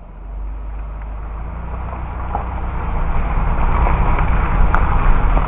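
Floodwater rushing in a swollen creek: a steady noisy rush with a heavy low rumble, growing louder over the first few seconds.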